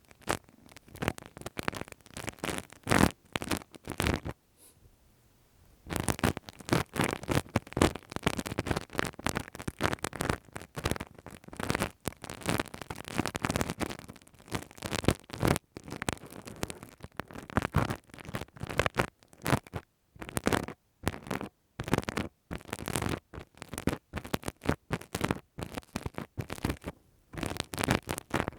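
ASMR ear-cleaning sounds: scratching and rubbing close on the microphone in quick, irregular crackling strokes. There is a pause of about two seconds near the start.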